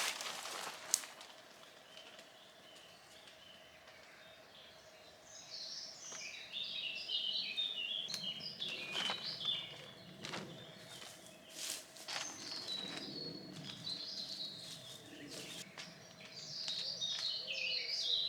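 A songbird singing in repeated phrases of quick high chirping notes, starting a few seconds in, with scattered short clicks and rustles in between.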